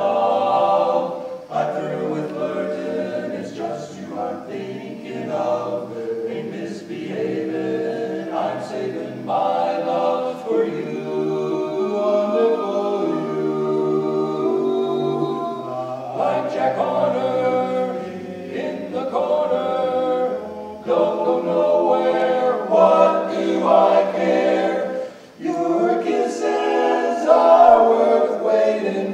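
Male barbershop quartet singing a cappella in four-part close harmony, moving through long held chords.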